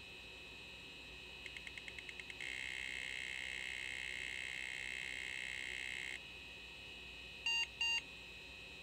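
A 486 PC going through its power-on self-test after a reset: a drive clicks rapidly about ten times, then whirs steadily for nearly four seconds. Near the end the PC speaker gives two short beeps, the loudest sound, an AMI BIOS two-beep code, which AMI lists as a parity error in the first 64K of memory.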